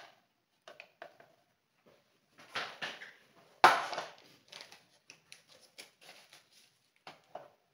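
Kitchen clatter of dishes and utensils being handled: a string of irregular knocks and clinks, the loudest a sharp knock about three and a half seconds in.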